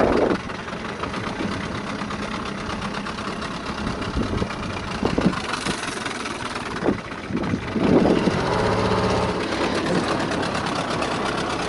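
Small outboard motor on a dinghy running steadily at low speed, its note changing for a moment about eight seconds in.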